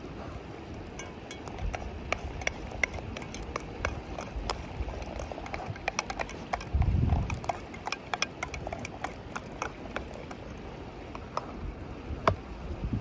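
Wood fire crackling in a small wood-burning camp stove: irregular sharp pops and snaps throughout. Wind gusts rumble on the microphone about seven seconds in.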